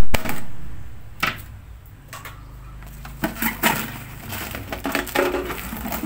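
Printed paper sheet being punched through and torn open by hand: a loud rip at the start, then scattered crackling and crumpling as the torn paper is pulled away.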